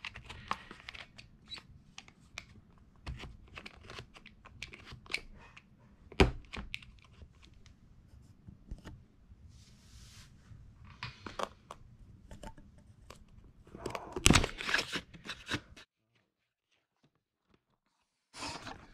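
Cardboard product box being handled and opened on a wooden desk: scattered taps, scrapes and tearing of the packaging. There is a sharp knock about six seconds in and a louder stretch of tearing and scraping around fourteen seconds. Then the sound cuts out completely for about two seconds before the handling noise resumes.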